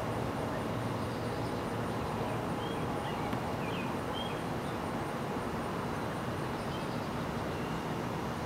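Steady outdoor background rumble, with a few faint high chirps about three to four seconds in.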